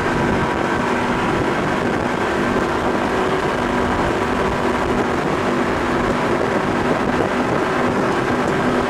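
Twin 1200 hp Mercury engines of an MTI 48 offshore powerboat running at high speed: a steady engine drone with held tones, under wind rushing over the microphone.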